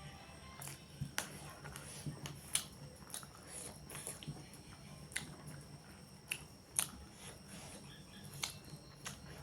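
Close-up eating sounds from a mukbang of chicken curry: chewing with irregular sharp wet clicks and smacks, roughly one or two a second.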